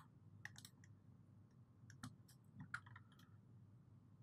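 Near silence with several faint, scattered computer mouse clicks.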